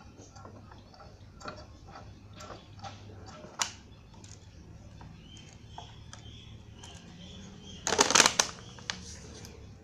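Plastic bottle crackling as it is handled, with a loud burst of crinkling about eight seconds in. Scattered light clicks and knocks of handling at a bench vise come before it, one sharp click about three and a half seconds in.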